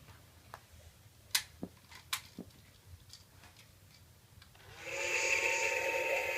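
Plastic clicks from an Imaginext Brontosaurus toy being worked, then, near the end, a steady whirring buzz from the toy starts up and keeps going.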